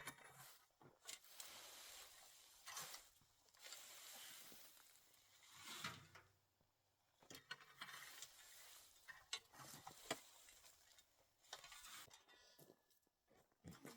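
Faint rustling and scraping of a rake dragged through dry leaves and debris, in repeated strokes about every one and a half to two seconds, with small twig snaps and clicks.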